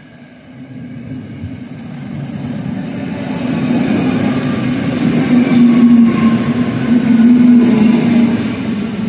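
Electric multiple unit passing close by, its running noise building as it approaches and loudest as the cars go past, with a steady low hum throughout the passage.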